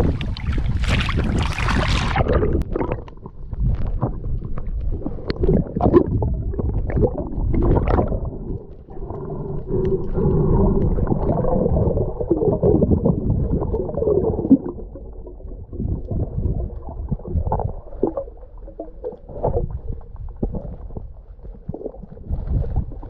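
Water splashing for about two seconds, then the muffled sound of being underwater: gurgling and bubbling with scattered knocks.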